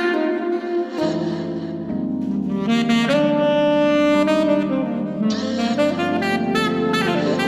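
Instrumental music with a melody of long held notes over a steady accompaniment.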